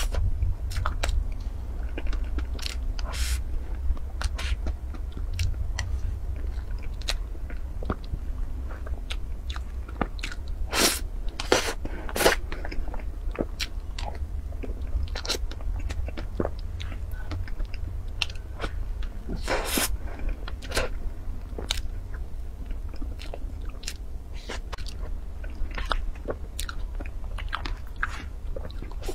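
Close-miked chewing of soft cream cake, with scattered sharp clicks throughout over a steady low hum.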